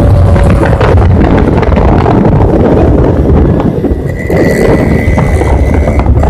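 Motorcycles running at road speed, heard from a moving bike: loud engine and wind noise on the microphone, with a faint steady whistle for the last two seconds or so.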